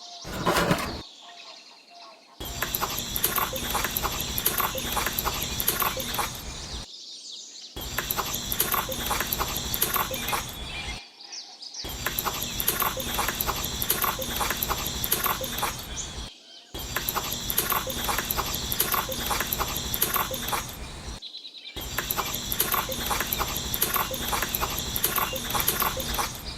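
Dense outdoor chorus of chirping birds and insects, in several stretches of a few seconds separated by brief silent gaps.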